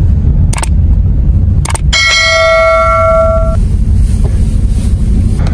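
Steady low rumble of van engine and road noise heard from inside the cabin. Two short clicks come early, then a bell chime rings for about a second and a half: the click-and-ding sound effect of a subscribe-button animation.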